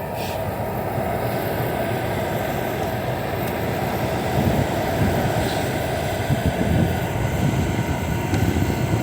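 Hisense dehumidifier running with its fan at full speed, a steady rush of air from the outlet. From about four seconds in, an uneven low rumble rises under the airflow.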